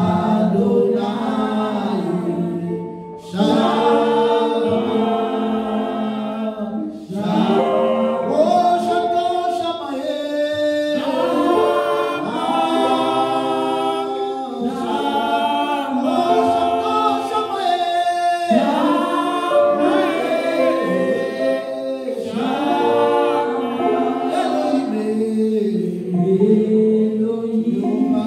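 A man singing a worship song into a microphone in long held, gliding notes, with short breaks about 3 and 7 seconds in.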